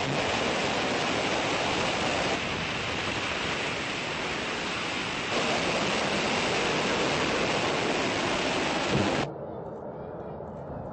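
Rocket exhaust noise from the Safir launch vehicle at liftoff: a loud, steady rushing noise. It steps in level a couple of times and cuts off abruptly about nine seconds in, leaving a fainter hiss.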